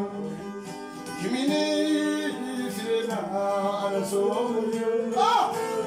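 A man singing a song in a non-English language, accompanying himself on a strummed acoustic guitar.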